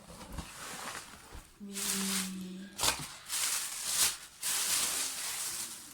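Rustling of the shoe packaging as the new safety shoes are handled, in several stretches of a second or so, with a short steady low tone about two seconds in.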